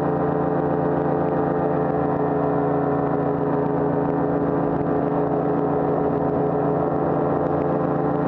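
Paramotor engine and propeller running steadily at cruise power in flight, a constant drone with wind noise over it.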